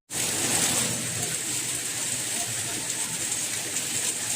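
Steady rain falling, an even hiss with no pattern of single drops. It cuts out for an instant at the very start, then carries on unchanged.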